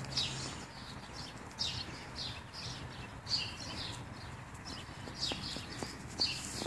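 Short high chirps on and off from small birds, with a few faint ticks in between.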